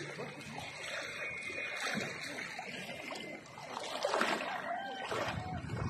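Water splashing and sloshing as people wade and swim through a river, with a louder splash close by about four seconds in as an arm reaches into the water.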